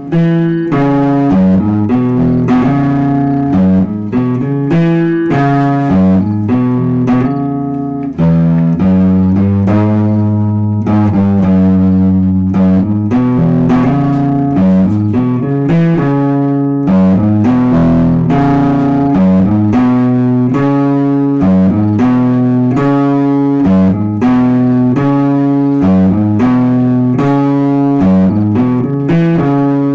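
Electric guitar played through an amplifier with a clean tone, picking a rhythm part of steadily changing notes and chords.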